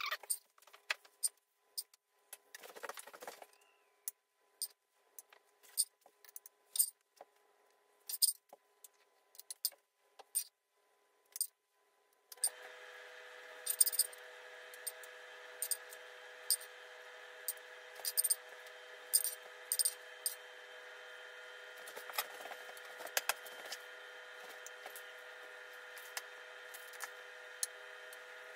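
Metal spoon and fork clinking and scraping against a cast-iron skillet and a glass baking dish as stuffing is scooped out and spread, in many short sharp clicks. About twelve seconds in, a steady hum with a faint whine starts underneath and keeps going.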